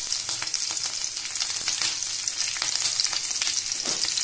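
Hot oil in a kadhai sizzling steadily, with fine crackling and popping, around mustard seeds, cumin, chopped ginger-garlic and green chillies frying as a tempering (tadka).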